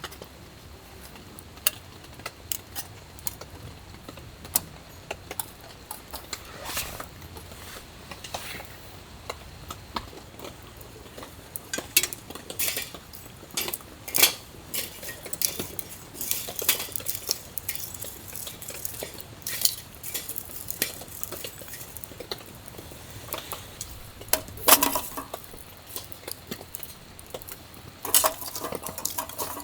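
Metal camp cookware and utensils being handled: a scattered series of sharp clinks and knocks, busier in the second half, with the loudest knocks near the end.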